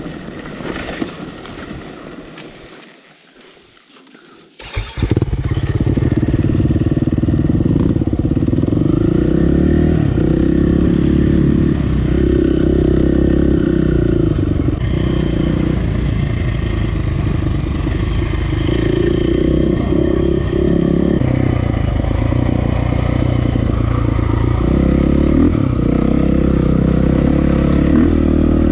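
KTM EXC dirt bike's four-stroke single-cylinder engine running loud from on board the bike, the throttle rising and easing as it rides along a trail. The first few seconds are quieter, before the engine sound comes in about five seconds in.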